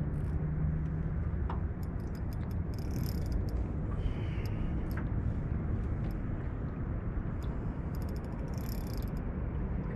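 Steady low rumble, like wind on the microphone. Twice it is broken by a short run of rapid high ticking from a fishing reel, worked against a heavy fish.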